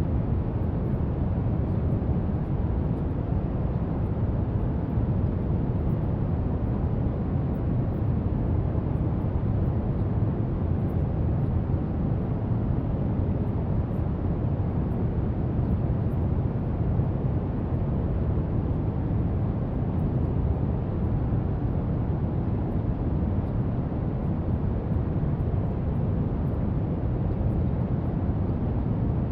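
Steady brown noise: an even, unchanging hiss weighted heavily toward the low end.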